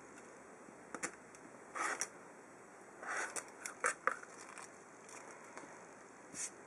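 Rotary cutter trimming a half-square triangle of quilting cotton against a plastic ruler on a cutting mat: a few short, soft swishes of the blade through the fabric, light plastic clicks and taps as the ruler is handled and lifted, and a brief rustle near the end as the trimmed fabric piece is picked up.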